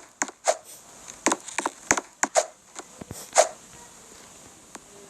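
A quick, irregular run of sharp knocks, about a dozen in the first three and a half seconds, then only a couple of faint ones.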